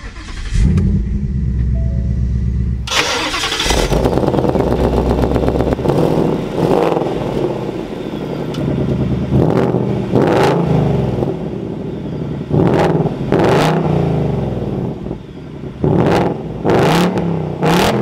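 Ford Mustang Mach 1's 5.0-litre V8 starting at the push of its start button and running at a fast idle. It is then heard at the quad-tip exhaust, revved repeatedly in short blips, often two close together.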